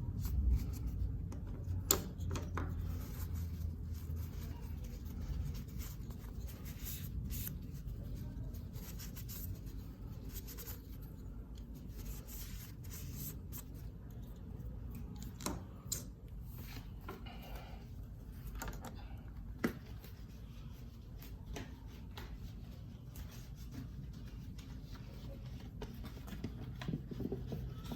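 A parcel being handled and opened by hand: rubbing and scratching of packaging, with scattered small clicks and ticks over a steady low hum.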